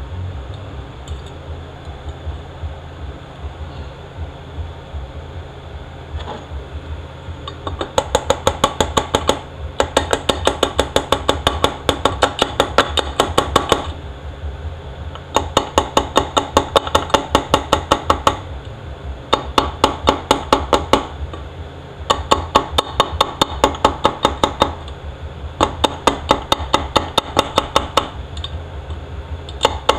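Rapid, evenly spaced metallic clicking, about ten clicks a second, in runs of one to four seconds starting about eight seconds in, from a hand tool working in a 68RFE transmission clutch drum. A steady low hum runs underneath.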